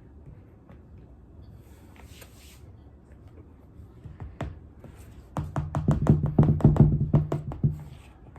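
Close-miked mouth sounds of chewing a big spoonful of powdery food, squeaky and crunchy. About five seconds in it turns into a loud, quick run of sharp squeaks and clicks over a low hummed 'mm' that lasts a couple of seconds.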